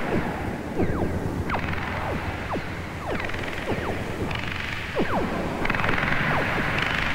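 Mixtur-Trautonium electronic score: many quick, overlapping downward pitch swoops over a hissing band that switches up and down in blocks every second or two, with a low hum underneath.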